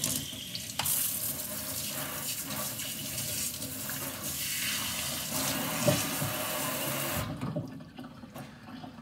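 Kitchen faucet running into the sink while hands are rinsed under the stream, splashing. The water shuts off about seven seconds in.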